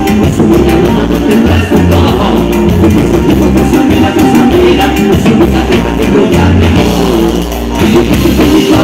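A band playing live: electric bass and drum kit keeping a steady dance beat, with singers on microphones.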